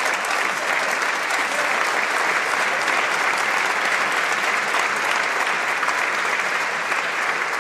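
Sustained, steady applause from a large crowd of members of parliament clapping.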